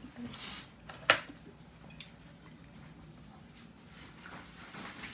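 Light rustling handling noises with one sharp click about a second in.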